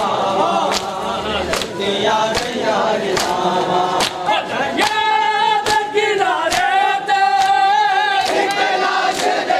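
Men chanting a nauha (Shia lament) in chorus while the mourners beat their chests in matam, the hand slaps landing in steady time about once every 0.8 seconds.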